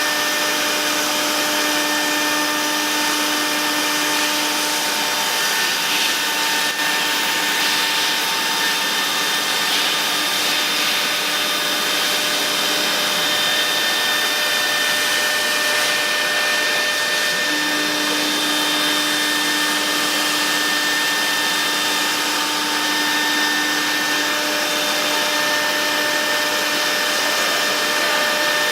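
CNC router spindle running steadily: a whine of several steady tones over a hiss. The lowest tone of the whine fades out for about twelve seconds in the middle, then returns.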